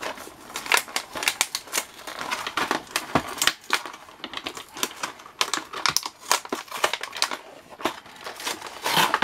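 Clear plastic blister packaging of a fingerboard pack crinkling and crackling in irregular sharp clicks as hands pry it open from its cardboard backing.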